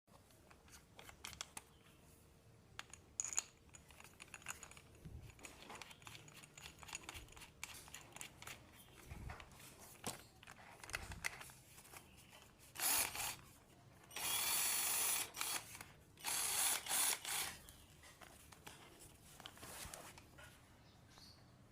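Cordless battery drill handled with scattered clicks and knocks, then run in three short bursts about 13 to 17 seconds in, the longest about a second and a half.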